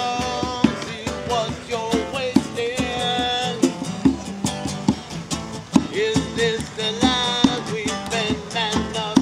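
Live acoustic band music: a strummed guitar and hand percussion keeping a steady beat, under a voice singing long held notes.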